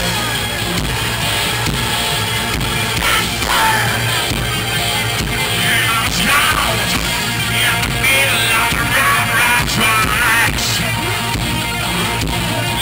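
A rock band playing loudly live with electric guitars, a singer's voice coming in about three seconds in.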